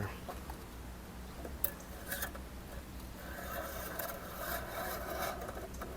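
Metal engine oil dipstick being handled and wiped, a soft rubbing and scraping with a few light clicks, over a low steady hum.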